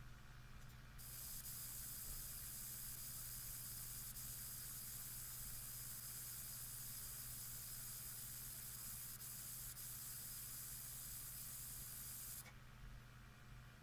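Asus Strix GTX 970 graphics card giving off a high-pitched hissing whine that switches on suddenly about a second in and cuts off just as suddenly near the end, over a steady low hum.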